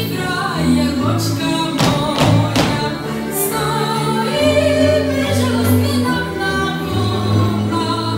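Czardas folk dance music with singing, a steady bass line stepping from note to note under the melody.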